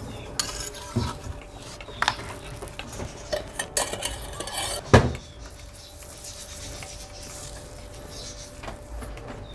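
Steel kitchen utensils clinking and scraping: a flat spatula and a steel spoon working on a black tawa griddle, and steel bowls and a plate being handled. The clinks come irregularly, with the sharpest one about five seconds in.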